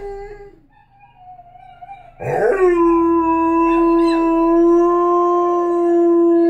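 Border collie–Labrador mix dog howling. A short howl tails off at the start, then about two seconds in a long, steady howl begins and holds one pitch for several seconds.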